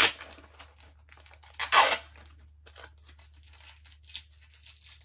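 Packaging rustling as comic books are handled and unpacked. A loud rustle comes right at the start and a louder one, about half a second long, just before two seconds in, followed by faint scattered rustles and small clicks.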